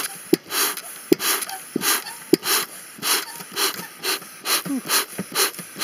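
Bee smoker's bellows pumped over and over, each squeeze a short hissing puff of air through the can, a little under two a second, to get freshly lit pine needles burning. Short squeaks come through on some strokes.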